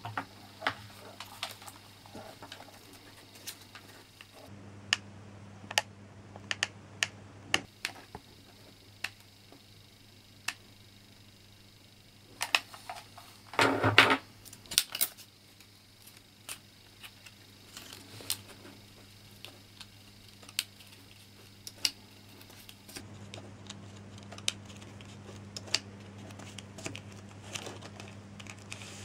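Irregular light clicks and taps of small plastic parts being handled and fitted together on a table, with one louder clatter about halfway through. A low steady hum runs underneath.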